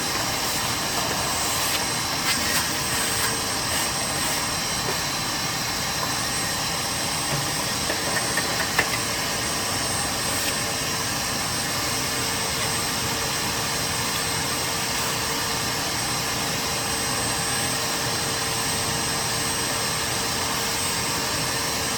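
Shop vac running steadily, sucking dust out of a refrigerator's condenser coil, with a few light knocks of the nozzle a couple of seconds in and again about eight seconds in.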